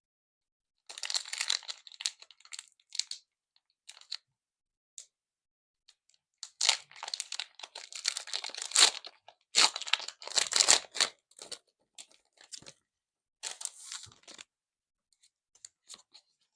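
Foil booster pack wrappers being crinkled and torn open, in a series of crackly bursts with silent gaps between them, loudest past the middle.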